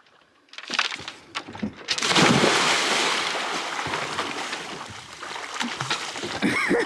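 Water splashing and rushing close to the microphone. A few small splashes come first, then a loud wash begins about two seconds in and slowly dies down.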